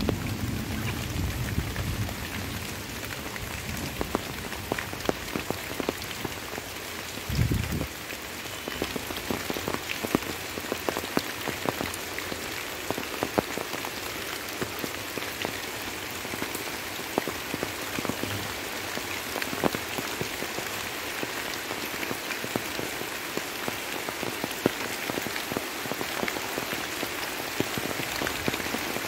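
Light rain falling steadily, with many individual drops ticking sharply close by. A low rumble dies away in the first two seconds, and a single brief low thump comes about seven seconds in.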